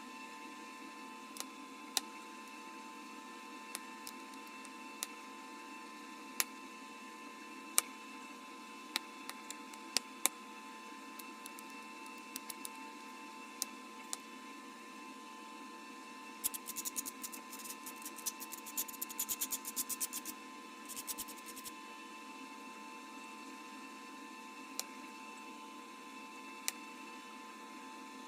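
Sharp glass clicks, one every second or two, from flakes being pressed off the edge of a beer-bottle glass blank, with a run of rapid clicking about two-thirds of the way through. A steady electrical hum lies underneath.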